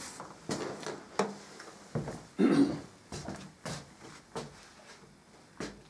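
Footsteps on a wooden plank floor, with a few short knocks and thuds at uneven intervals; the loudest comes about two and a half seconds in.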